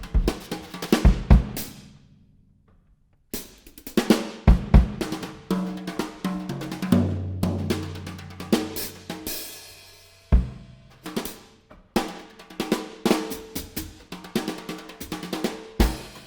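Instrumental music led by a drum kit, with sharp snare and bass-drum strikes and cymbals over pitched notes. It drops to a near-silent break about two seconds in, then resumes, with a held low bass note in the middle.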